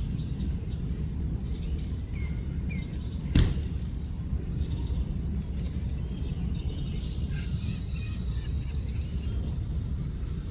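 Songbirds calling over a steady low rumble: three short falling chirps, a sharp click, then a longer warbling song.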